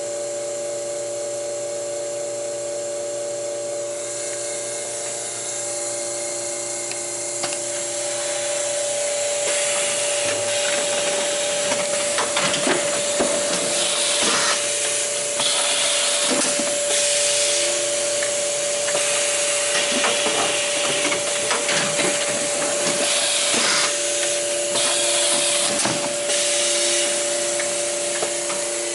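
Combi 2EZ taper case erector running: a steady machine hum throughout. From about eight seconds in there are repeated knocks, rubbing and short hissing bursts as corrugated cardboard cases are formed and fed through.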